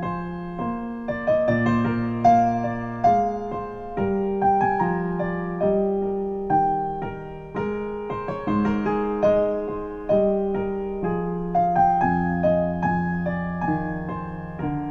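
Slow solo piano music with notes and chords struck and left to fade, played through hi-fi loudspeakers and picked up by a stereo pair of electret condenser microphone capsules.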